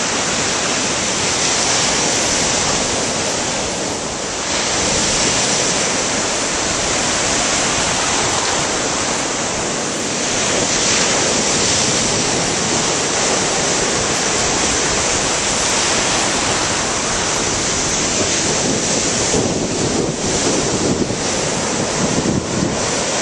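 Ocean surf breaking and washing up the beach: a steady rush of waves that swells and eases slightly as each wave breaks.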